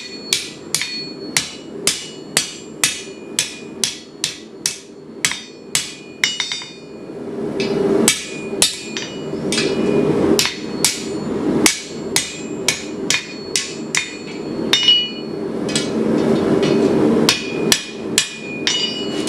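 Hand hammer striking hot steel on an anvil, steady blows with a bright ring, about three a second and then, after a short break about six seconds in, about two a second. From about seven seconds a steady rushing noise sounds behind the blows.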